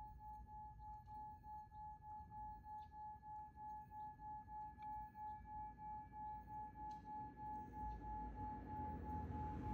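A steady, bell-like meditation tone, pulsing about three times a second, with a low rumble that swells near the end.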